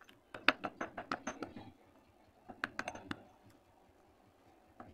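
Stone pestle pounding and crushing lumps of multani mitti (Fuller's earth clay) in a stone mortar: quick runs of sharp knocks and crackles as the dry lumps break, one run in the first second and a half and a shorter one around three seconds in.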